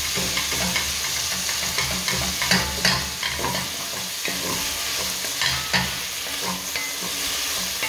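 Minced meat frying in oil in a nonstick pan, sizzling steadily. A wooden spatula stirs and breaks up the meat with many small scrapes and taps.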